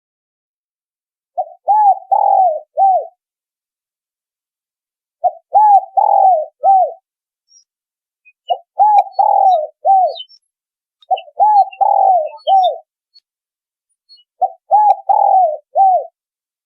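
Spotted dove (tekukur) song played as a lure call: five phrases of several arched coos each, one about every three seconds. Faint high chirps of small birds come between the phrases.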